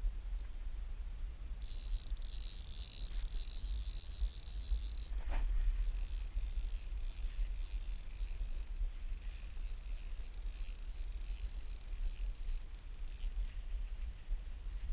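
Fly reel's click-and-pawl ratchet buzzing as line runs through it. It comes in two long spells broken by a short knock about five seconds in, and stops shortly before the end, over a steady low rumble.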